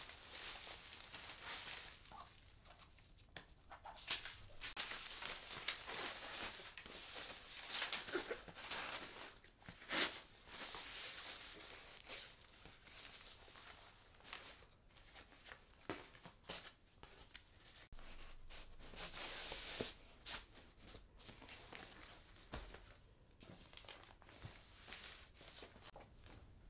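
Plastic packaging crinkling and the stiff fabric sides of a white IKEA storage box, held in shape by plastic sheets, rustling as it is unwrapped, opened out and handled. There are scattered light knocks and a longer burst of rustling about three quarters of the way through.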